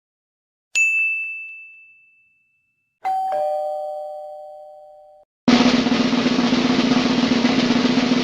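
A string of separate sound effects. First a single high ding that rings out and fades, then a lower two-note ring that cuts off after about two seconds, and from about halfway in, a snare drum roll lasting about four seconds.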